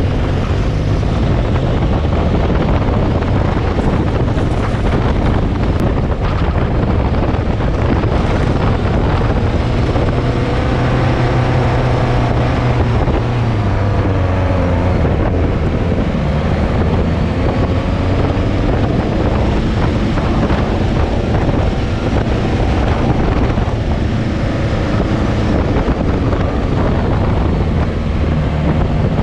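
Off-road vehicle engine running under load, its pitch rising and falling as it is driven, with wind buffeting the microphone.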